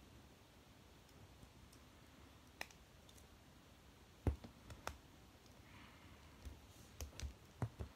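Scattered light plastic clicks and taps as a 2002 Mattel He-Man action figure and its small sword are handled, the sharpest click about four seconds in and a quick run of clicks near the end.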